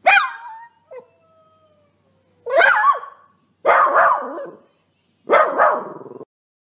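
Dachshund puppy yapping and howling: a high yelp that falls in pitch, a faint whine, then three more howling barks over the next few seconds, the last two harsher.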